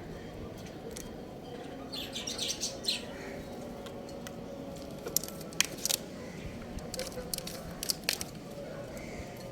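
Young rooster chirping: a quick cluster of short, high peeps about two seconds in. Several sharp clicks or taps come a few seconds later and are the loudest sounds.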